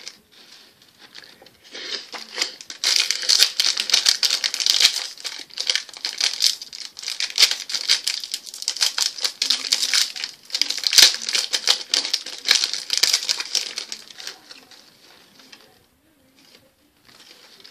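Trading card pack wrapper crinkling and tearing as a new pack of hockey cards is opened and handled, a dense crackle for most of the time that dies away near the end.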